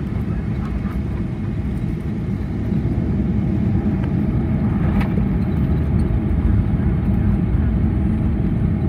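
Boeing 757-200 cabin noise on descent: a steady, loud low rumble of engines and airflow, growing somewhat louder about two or three seconds in.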